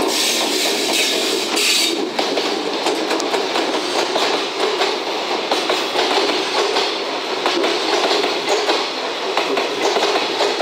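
Container wagons of a JR Freight goods train rolling past at close range, their wheels clicking over the rail joints in a steady clickety-clack. A higher hiss cuts off about two seconds in.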